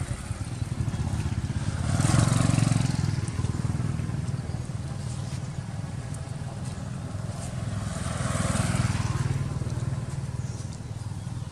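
Road traffic: a steady low engine hum, with two vehicles passing by, one about two seconds in and another around eight seconds in. Each pass rises and then fades.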